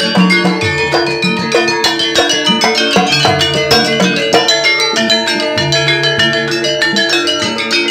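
Jaranan gamelan music played live: kendang drums beat a fast, dense rhythm over ringing pitched metal percussion and low sustained gong-like notes.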